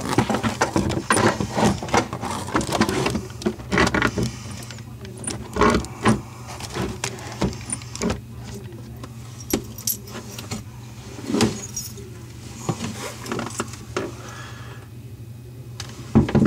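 Small metal faucet mounting parts (washer, bracket and anchoring nut) clinking and knocking as they are handled and fitted onto the faucet underneath a bathroom sink, in many short irregular clicks.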